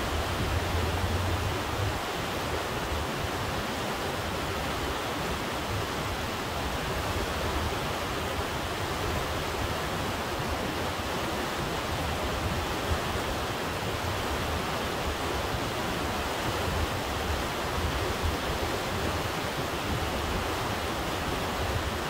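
Glacier-fed Kennicott River rushing past in a steady, unbroken wash of fast water. A low rumble swells under it at the start and again about three-quarters of the way through.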